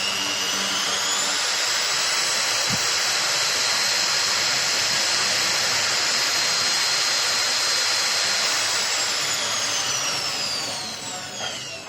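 Angle grinder's electric motor spinning up with a rising whine, running steadily at full speed, then winding down with a falling whine over the last few seconds.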